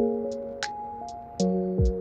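Background electronic music: a steady beat of kick drums and crisp hi-hats under held synth chords.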